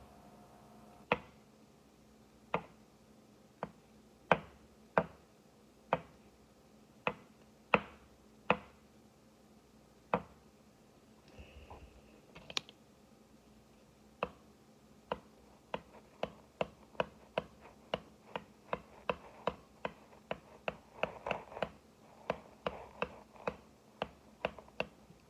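Repeated sharp clicks, close to the microphone: sparse and uneven at first, about one a second, then quickening to two or three a second from about halfway through.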